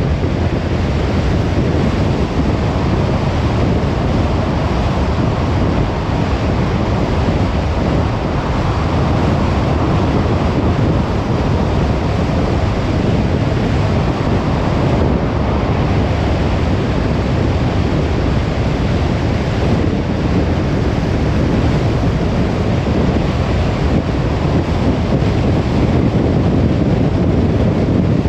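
Car driving at a steady speed: a constant rush of road and tyre noise with wind, heavy in the low range and without breaks.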